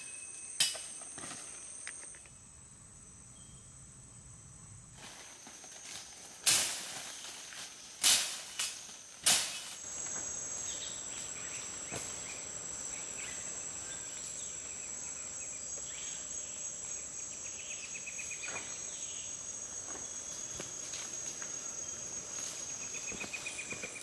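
Rainforest insects droning in steady high-pitched tones, with a few sharp snaps or knocks in the first half.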